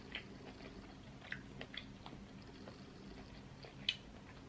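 Faint chewing, with a few small wet mouth clicks and smacks, the sharpest near the end, from a person eating seafood boil in sauce.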